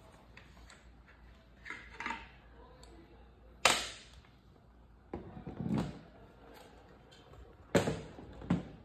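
Handling noises from an airsoft rifle with a wooden stock: a few sharp clacks and knocks, the loudest about four seconds in and two more near the end, with softer scrapes and rustles between.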